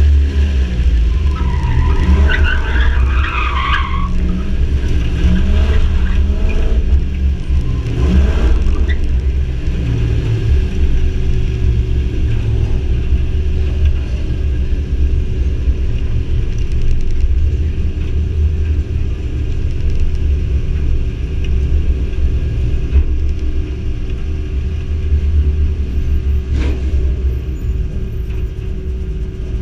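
Classic pickup truck's engine rumbling low at the end of an autocross run. Its tires squeal briefly in the first few seconds as it takes the last turn, then the engine settles into a steady low rumble as the truck rolls slowly and idles.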